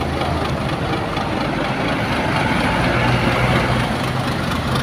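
Intercity coach bus's diesel engine running with a steady low hum as the bus moves off.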